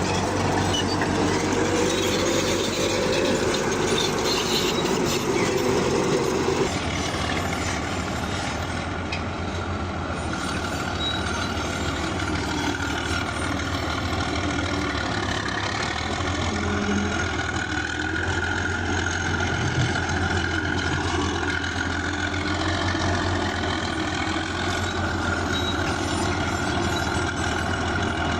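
Bulldozer's heavy diesel engine running steadily as it works. The sound changes abruptly about seven seconds in, and the engine keeps running after the change.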